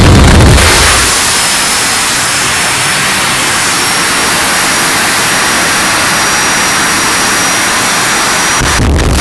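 Jet truck's jet engine running: a loud, dense rushing noise with a thin high whine over it that slowly climbs in pitch as the engine spools up.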